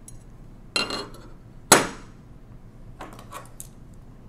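Small metal tools and parts handled on a tabletop as digital calipers are taken up to measure a screw. There are two sharp clinking knocks, the second louder, then a few light clicks near the end.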